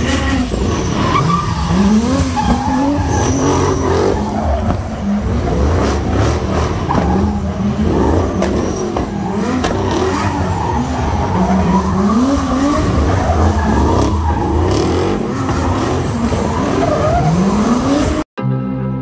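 Car engines revving hard in repeated rising sweeps, with tyres squealing and skidding as in a burnout or drift. The sound cuts off suddenly near the end, and string music begins.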